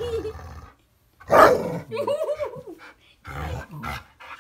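Dalmatian vocalising: wavering whiny, grumbling calls, broken by a loud bark about a second and a half in and another growly bark near the end.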